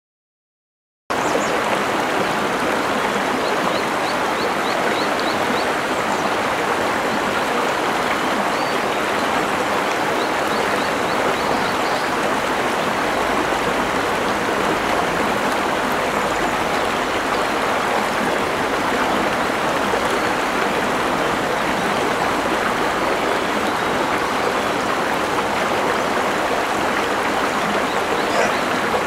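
Steady rush of river water flowing over rocks, starting about a second in. A few faint high chirps sound over it a few seconds later.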